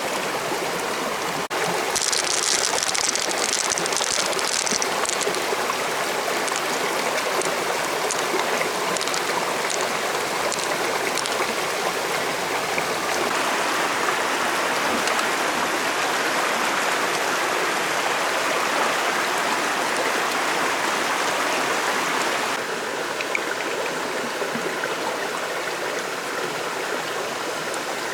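Stream water running steadily, with a brief higher hiss a couple of seconds in and a slight drop in level near the end.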